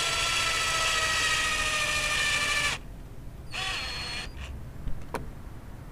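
Cordless drill spinning an iGrip ST25R stud into a rubber snowmobile track, running with a steady whine for under three seconds and then stopping abruptly. A brief second burst of the drill follows, then a couple of light clicks near the end.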